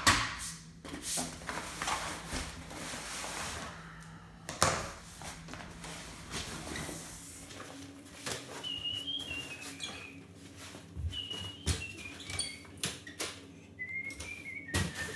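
Metal-framed folding camping table being pulled out of its fabric carrying bag and unfolded: bag rustling and metal legs clattering, with a sharp knock about four and a half seconds in. In the second half, short high whistle-like tones come and go.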